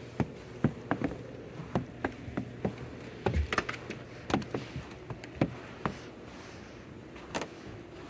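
Small, sharp clicks and taps at an irregular pace, a few a second, thinning out after about six seconds with one last click near the end: a chickadee pecking at sunflower seeds held in an open hand. A faint steady hum lies underneath.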